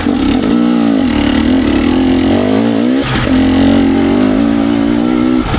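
Dirt bike engine running on and off the throttle, its revs rising and falling, with a brief drop a little past halfway before it picks up again.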